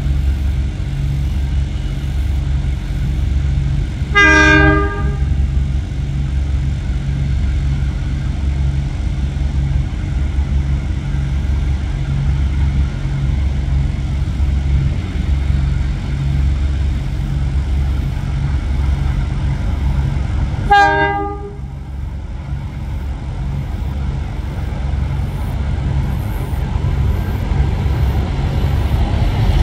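A pair of NSW 44 class Alco diesel locomotives passing at speed, their engines throbbing, with the clatter of a container freight train on the next track. A train horn sounds two short blasts, about four seconds in and again about two-thirds of the way through.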